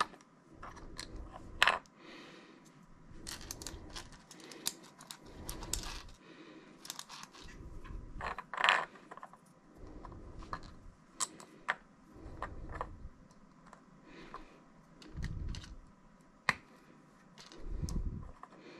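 Small 3D-printed PLA plastic parts being handled and fitted together: scattered clicks, taps and clacks of plastic against plastic and against the floor, as small printed pins are pushed into place. The two sharpest clicks come near two seconds in and near nine seconds in.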